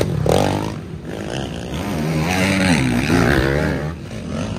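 Racing ATV engines revving, their pitch rising and falling repeatedly with the throttle.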